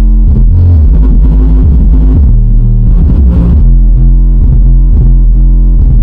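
Bass-heavy music played very loud through a car audio amplifier and speaker, with deep bass notes that shift in pitch about every second or two.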